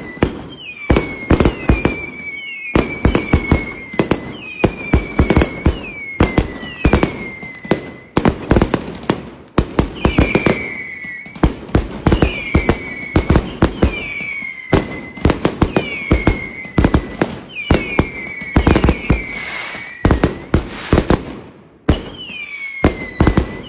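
Fireworks sounds: rapid popping and crackling bangs, with a short falling whistle about once a second.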